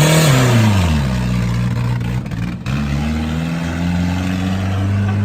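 Turbocharged Nissan SR20 four-cylinder engine revving under a driver: the pitch peaks right at the start and falls away over the first second, drops out briefly a little after two seconds in, then climbs again slowly and steadily.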